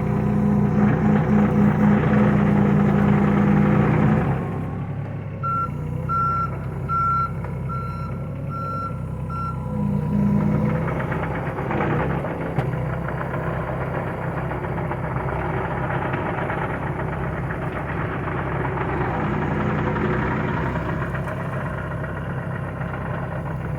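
John Deere 26G mini excavator's diesel engine running, working harder for the first four seconds and then settling lower. A backup alarm beeps about six times, evenly spaced, from about five to ten seconds in.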